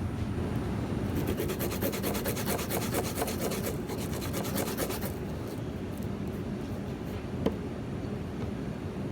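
Fast, rhythmic rasping strokes for about four seconds over a steady low rumble, then a single sharp click near the end.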